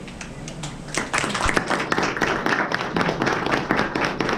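A small audience applauding, with hand claps starting about a second in and carrying on steadily.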